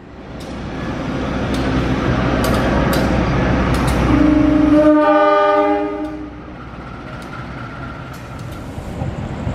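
A diesel-electric locomotive blows its air horn for about two seconds, beginning about four seconds in, as the rumble of the approaching train builds and then drops away.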